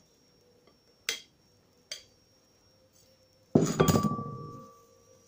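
Metal flour sieve being knocked against a mixing bowl to shake flour through: two light clinks, then a quick run of louder knocks about three and a half seconds in, leaving a brief metallic ring.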